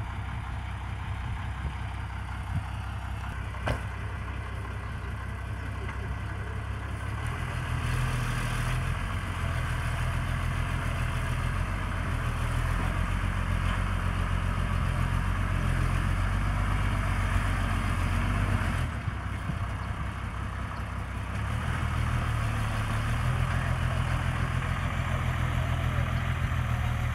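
Diesel engine of a rock-laden dump truck running, at first near idle, then working harder from about seven seconds in as the truck pulls across a ploughed field. It eases off briefly around twenty seconds and picks up again.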